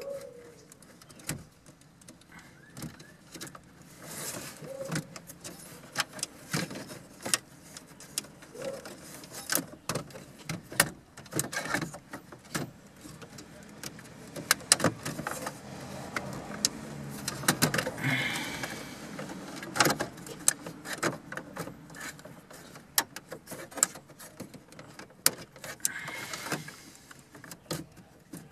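Irregular plastic-and-metal clicks, knocks and scrapes of a JVC car stereo receiver in its mounting bracket being pushed and worked into a dashboard opening, with a denser run of scraping about halfway through.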